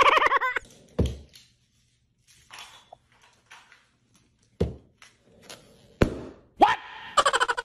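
A dog mouthing and pawing a rubber balloon: a few dull thumps spaced a second or more apart, with a short rising squeak near the end.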